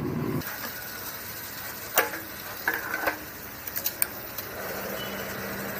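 A motorcycle engine cuts off about half a second in. Then comes a series of sharp metallic clicks as the fuel-tank cap is unlocked and opened and a petrol pump nozzle is put into the tank. A faint steady hum starts near the end.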